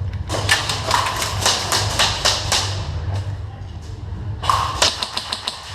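Airsoft guns firing: a quick string of sharp snaps lasting about two seconds, then a shorter string about four and a half seconds in, over a steady low rumble.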